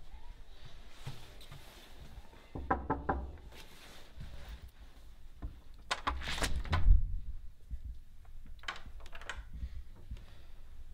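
Knocking on a wooden apartment door, a quick run of about four raps, then a few seconds later a louder thud as the door is unlatched and opened.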